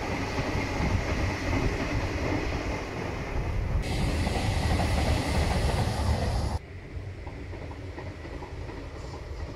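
Madrid Metro series 6000 electric train (CAF, 1998) passing on its tracks: a steady rumble of wheels on rail with a thin high whine, turning hissier and louder as it passes close about four seconds in. The sound drops abruptly about seven seconds in to a quieter rumble as the train moves off.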